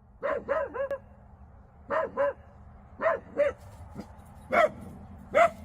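A dog barking in short barks, in groups: three quick barks, then two pairs, then two single barks.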